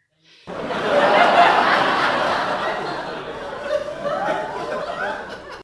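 Loud laughter that starts abruptly about half a second in and cuts off suddenly at the end.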